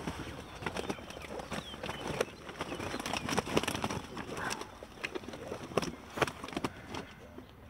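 Rustling with irregular knocks and slaps as a wet keepnet and weigh sling full of fish are handled and emptied.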